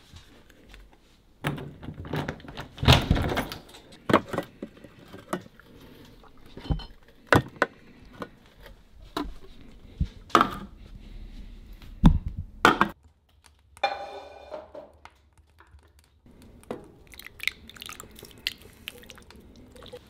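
Irregular knocks and clatter of a cooking pot and utensils being handled, several of them sharp and loud, with a brief squeak about two-thirds of the way through.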